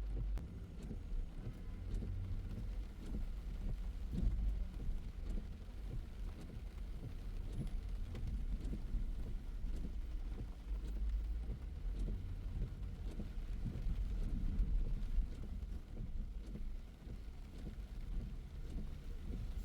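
A car driving in the rain: a steady low rumble of road and engine noise, with rain falling.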